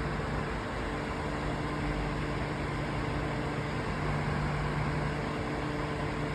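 Electric fan running steadily: a rush of moving air over a constant low motor hum.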